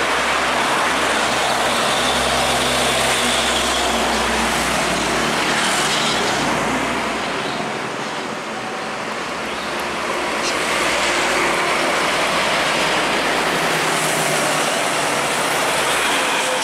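Heavy diesel trucks and truck-and-trailer rigs passing close on a highway, their engines and tyre noise mixed with motorcycles in the traffic. The loudness dips briefly about halfway through, then swells again as more vehicles pass.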